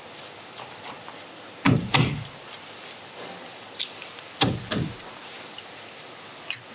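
Large kitchen knife chopping through a scorpion fish's bones onto a plastic cutting board: four heavy thunks in two pairs, with a few lighter knife clicks between them.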